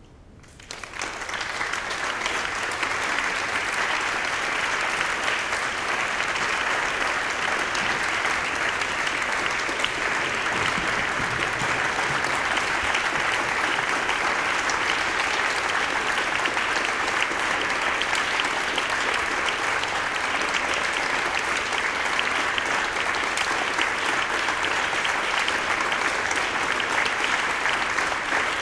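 Audience applauding. The clapping swells in about a second in, then holds steady.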